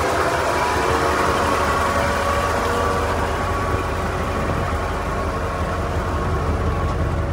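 1986 Ford F-150's V8 engine idling steadily, heard from underneath the truck as a deep, even rumble.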